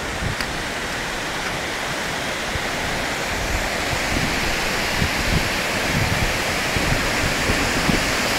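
Torc Waterfall in spate after a week of heavy rain: a steady rush of falling water, growing slightly louder.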